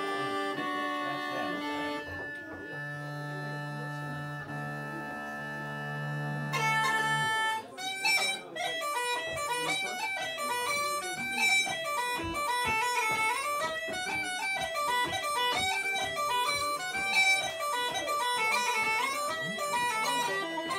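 Uilleann pipes holding long notes over steady drones and low regulator chords, then, about eight seconds in, breaking into a fast traditional Irish dance tune with a plucked-string accompaniment.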